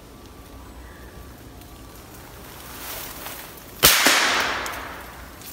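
A single .22 LR rifle shot about four seconds in: a sharp crack, a second crack a fraction of a second later, then a hiss that fades over about a second and a half.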